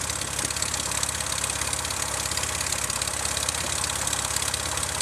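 Van's RV-8 light aircraft's piston engine and propeller running at low taxi power close by, a steady, even firing beat.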